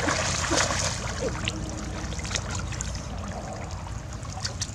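Shallow muddy paddy water trickling and sloshing as hands grope through it for fish, with scattered small splashes. It is loudest about the first second, then quieter.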